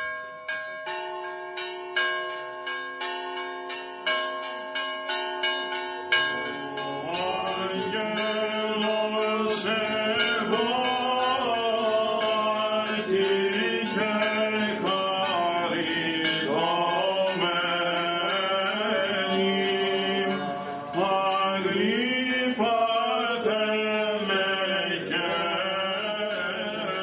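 Church bells struck in quick, even strokes, about two a second, then from about seven seconds in voices chanting an Orthodox hymn over the ringing.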